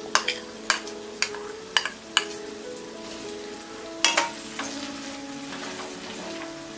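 Vegetables sizzling in oil in a kadhai as chopped tomatoes are added and stirred in with a metal spatula. A quick run of sharp metal knocks comes in the first two seconds, and one louder knock about four seconds in.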